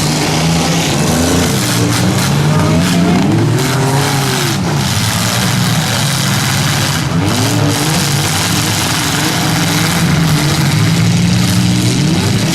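Several demolition derby car engines running and revving hard, their pitch swinging up and down over and over.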